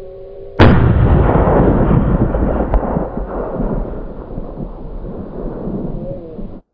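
A single rifle shot about half a second in, a sudden loud crack, followed by a long rumbling roll that slowly fades over several seconds and then cuts off.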